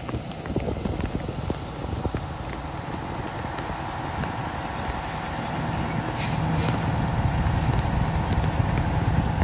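A motor vehicle's engine rumbling and growing louder, with a few short hisses about six to seven seconds in.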